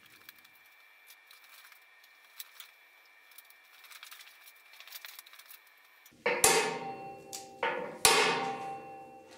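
Three hard metal-on-metal blows in the last few seconds, each ringing on afterwards: a hammer striking the steel frame of a compressor rack. Before them there is only faint workshop background with a thin steady high tone.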